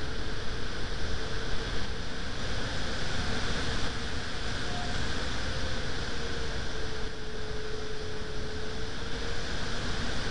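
Steady rush of wind noise on the microphone, strongest in the low end, with a faint thin tone drifting slightly in pitch underneath.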